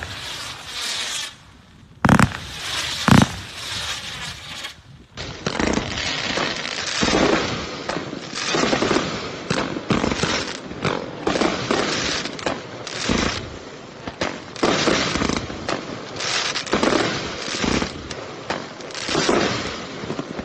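Consumer multi-shot fireworks cake firing: a sharp report at the start and two more about two and three seconds in, then from about five seconds in a steady, dense stream of crackling bangs.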